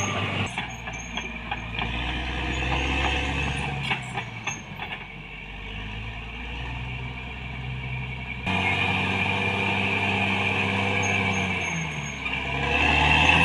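Caterpillar D6R XL bulldozer's diesel engine running, its note shifting with load and changing abruptly about two-thirds of the way through, with scattered metallic knocks in the first few seconds.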